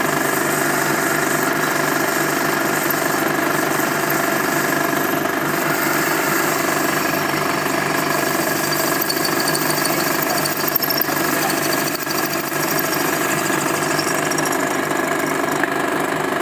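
Pillar drilling machine running steadily under load, its twist drill boring into a metal workpiece clamped in a vise: a continuous even motor-and-spindle hum mixed with the noise of the cut.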